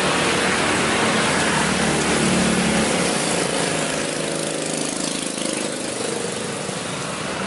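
Loud, steady engine noise, easing off a little in the second half.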